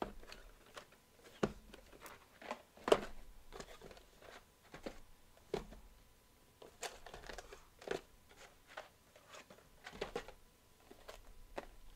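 Sealed cardboard trading-card boxes being handled and set down on a table: irregular light knocks and taps with some crinkling of their plastic wrap, the loudest knock about three seconds in.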